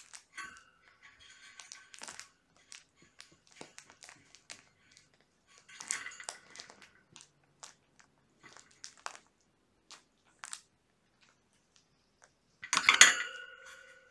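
Kittens play-wrestling on a plush pet bed and carpet: scattered soft scuffs, rustles and light clicks of small paws and bodies. About 13 s in comes a loud knock and rustle close to the microphone as a kitten brushes against the camera, with a brief ringing tone after it.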